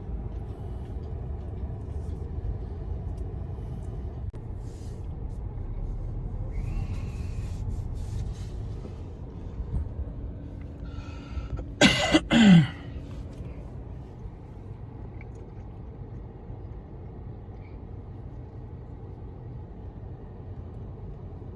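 Steady low road and engine rumble of a moving car heard from inside. About twelve seconds in comes a brief loud burst with a falling tone.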